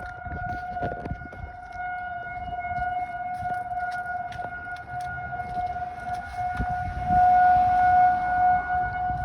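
Outdoor tornado warning siren sounding a steady, held tone as a tornado alert, swelling louder about seven seconds in.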